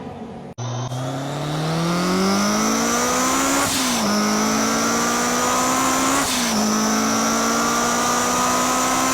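Honda S2000's inline-four engine accelerating hard through the gears. The revs climb steadily, drop sharply at two upshifts about four and six and a half seconds in, then climb again. A thin high whine runs above the engine note.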